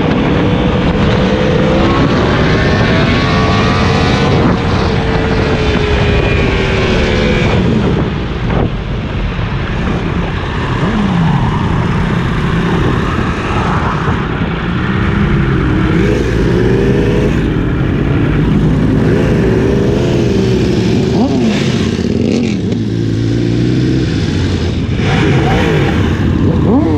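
Sport motorcycle engine running under way, its revs rising and falling several times, over a steady rush of wind noise.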